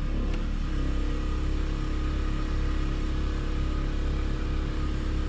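2015 Chrysler 200's engine idling steadily, a low even hum.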